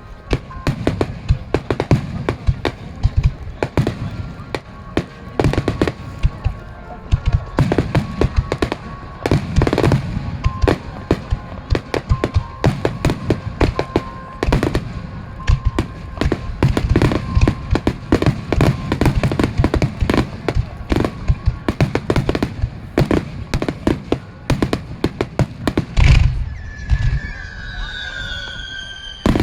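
Star mine fireworks barrage: shells bursting in rapid succession, several loud bangs a second, with one heavy deep boom near the end followed by a brief lull.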